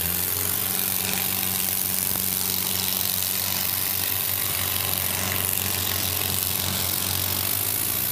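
Diesel tractor engines running steadily at a constant pitch.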